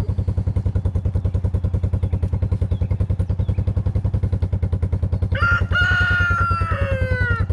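A rooster crows once about five seconds in, a call of about two seconds that holds and then falls in pitch at the end. Underneath, an engine idles with a steady rapid low pulse.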